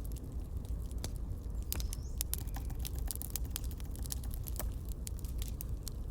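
Campfire crackling: irregular sharp pops and snaps from the burning wood over a low steady rumble.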